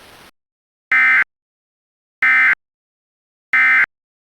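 Emergency Alert System end-of-message code: three short, identical bursts of digital data tones, about 1.3 seconds apart, signalling the end of the alert.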